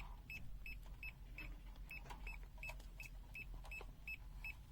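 Multimeter buzzer beeping in non-contact voltage (NCV) mode, short high beeps about three a second, the meter's warning that it senses a live mains cable nearby.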